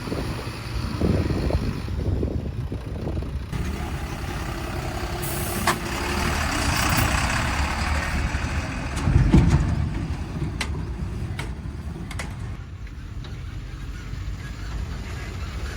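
Diesel engines of a JCB 4DX backhoe loader and tipper truck running steadily. About five seconds in comes a hiss of air lasting about three seconds, and later a few sharp clicks.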